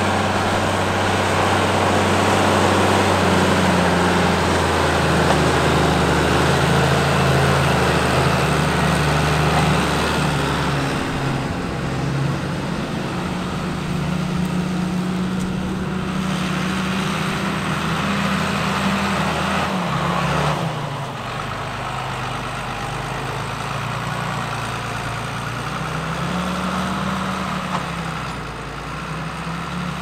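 Case MXM 155 Pro tractor's diesel engine running steadily under load while pulling a disc cultivator through the soil. The engine note shifts in pitch and drops in level about two-thirds of the way through.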